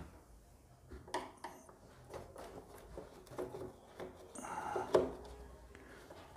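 Light clicks and taps of hands working on the plastic casing of a split AC indoor unit, with a louder scraping rustle of plastic about four to five seconds in.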